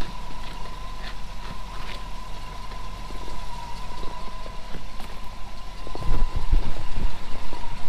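Pickup truck engine idling steadily, with a thin steady high tone running alongside. A few knocks and rustles come about six seconds in.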